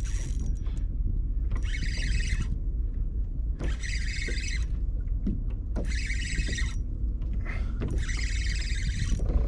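Fishing reel whirring in five short bursts about every two seconds as a hooked pampo is fought on light tackle, over a steady low rumble.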